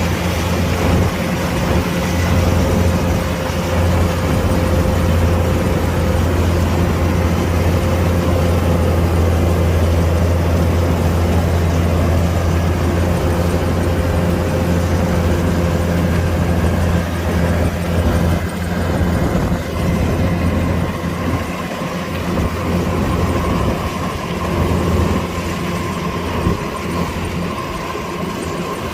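Kubota DC-105X combine harvester running steadily: a deep diesel engine drone with a thin steady whine on top. About two-thirds of the way through, the whine moves higher and the sound dips and wavers a little.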